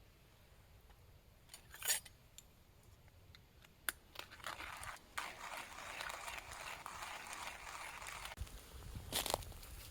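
Crinkling and rustling handling noise: a couple of sharp clicks, then several seconds of continuous rustling, and another short rustle near the end.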